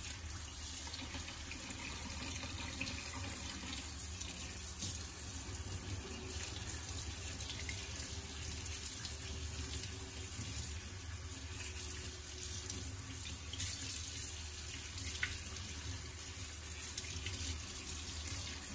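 Kitchen tap running into a stainless-steel sink, water pouring over soaked raisins and prunes as they are rinsed by hand in a plastic sieve.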